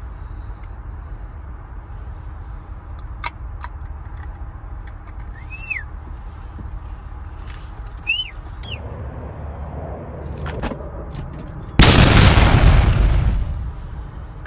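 A hawk's wings rush loudly at the microphone as it lands on the falconer's gloved fist at the car window, a sudden blast about 12 seconds in that fades over a second and a half. Before it there is a steady low rumble and a few short chirps.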